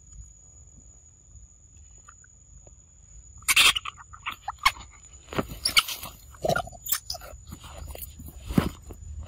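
Young macaques: faint chewing on papaya, then from about three and a half seconds a run of loud, sharp sounds and short squeaky calls as the monkeys stir and move about.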